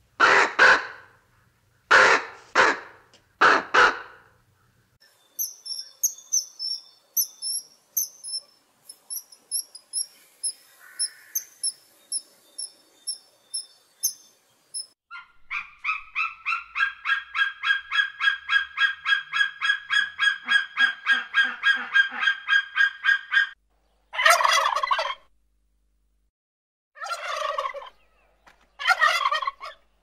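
A sequence of bird calls. First, a few croaks from a common raven. Then a run of high, thin chirps, and a fast even series of repeated calls lasting about eight seconds. Near the end, domestic turkeys gobble three times.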